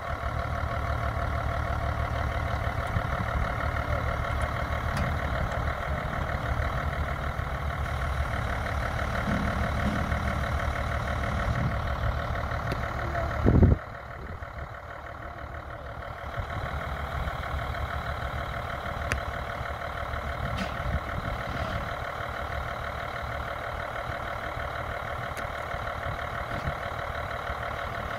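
Heavy diesel engines running steadily at idle. About halfway through, one engine's pitch falls away with a brief loud burst and it shuts off, leaving a quieter engine running.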